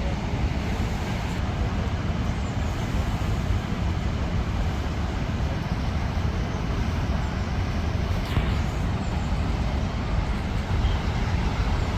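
The Rhine Falls, a large waterfall, rushing steadily: an unbroken wash of falling water, heaviest in the deep low end.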